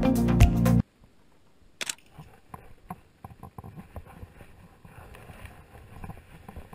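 Background music with a beat cuts off abruptly under a second in. Then comes faint outdoor quiet with light handling knocks and one sharp click about two seconds in, as a phone is held up to take a photo.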